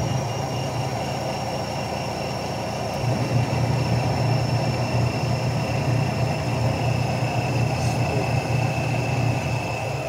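Spin motor of a Panasonic twin-tub washing machine running the spin basket on a test spin: a steady low hum with a faint high whine, growing slightly louder about three seconds in.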